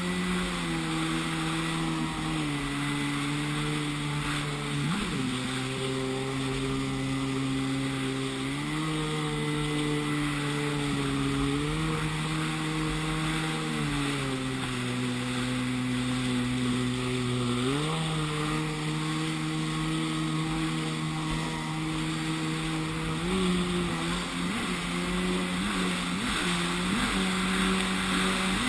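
Yamaha WaveBlaster 701 jet ski's two-stroke twin engine running at speed, its pitch stepping up and down several times as the throttle changes, with a quick spike about five seconds in and several brief sharp rises near the end, over a steady hiss of wind and water.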